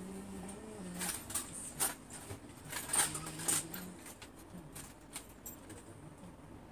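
A few light clicks and knocks, as of small items being handled and set down, scattered through the first four seconds, over a faint low hum.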